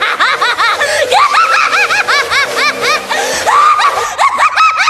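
High-pitched cackling laughter: a rapid string of short 'ha' bursts, about four or five a second, over background music.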